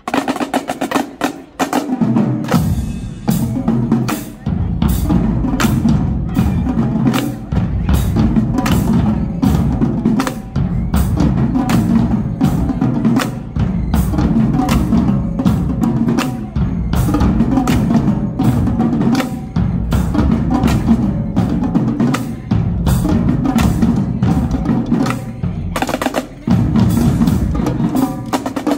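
Marching drumline playing together: rapid snare drum patterns and tenor drums, with bass drums joining about two seconds in and a brief thinning of the low drums near the end.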